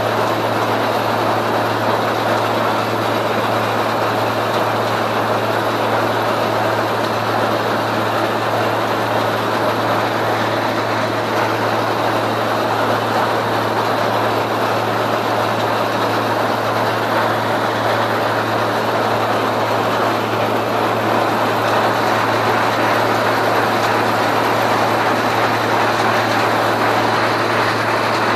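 Heavy farm machinery running steadily at constant engine speed: a steady low engine hum under an even mechanical noise.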